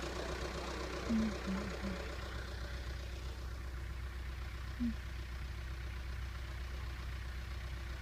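Backhoe's engine running steadily at idle, a low hum, with a few brief short sounds over it about a second in and again near five seconds.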